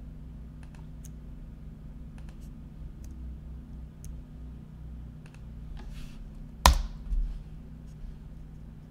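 Scattered computer keyboard keystrokes and mouse clicks over a steady low hum. About two-thirds of the way through comes one loud sharp knock, then a softer thump.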